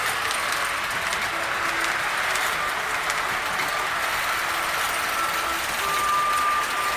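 O-gauge three-rail toy trains running around the layout, a steady whirring rattle of motors and wheels on tinplate track, with faint short tones here and there.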